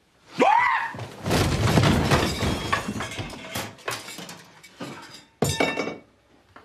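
A short rising-and-falling cry, then a long crash and clatter as a man falls into a clothes airer hung with clothes. Scattered knocks and rattles follow, and a second sharp crash comes near the end.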